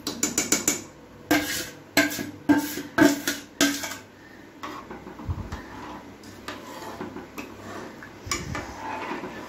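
Steel spoon clinking and scraping against the sides of an aluminium pressure cooker while stirring payasam. A quick run of clinks comes first, then a clink about every half second, and from about four seconds in the stirring goes softer with only occasional light taps.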